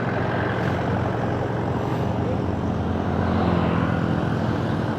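Motorcycle on the move, heard from a rider-mounted mic: a steady rush of wind and road noise over a low engine hum.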